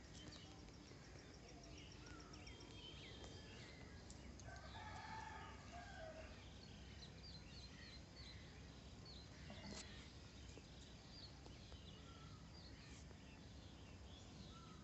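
A rooster crows faintly in the distance, once, about four seconds in, over scattered chirps of small birds.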